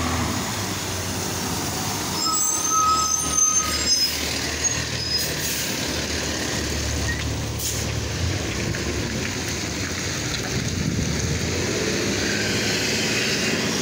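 Heavy tanker truck's diesel engine running as the truck moves along the street. A high squeal, like brakes, sounds about two to four seconds in, and a short air-brake hiss comes near eight seconds.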